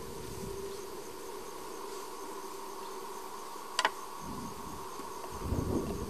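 Steady drone of insects, with a single sharp click about four seconds in and low rumbling near the end.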